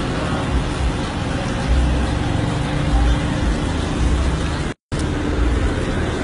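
Car and street traffic noise with a heavy, uneven low rumble, cutting out for a moment about three-quarters of the way through.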